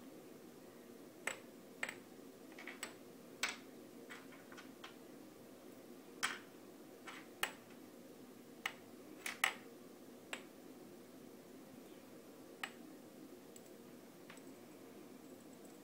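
Irregular light clicks and taps, about a dozen, as a kitten bats at window-blind cords: the cords' pulls and the kitten's paws knocking against the windowsill and frame. The taps thin out in the last few seconds, over a faint steady room hum.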